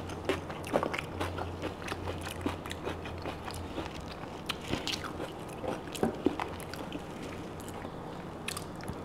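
Close-miked chewing and biting as a person eats roast lamb off the bone, with many scattered short mouth clicks.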